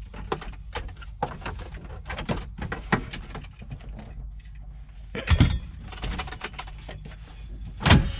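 A riveted dashboard part being wrenched loose by hand: a run of sharp clicks, creaks and rattles, with two loud cracking thumps about five and eight seconds in as it gives way.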